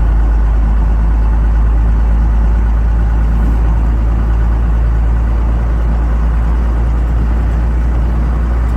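Cummins diesel truck engine running steadily as the truck pushes snow, a heavy low drone.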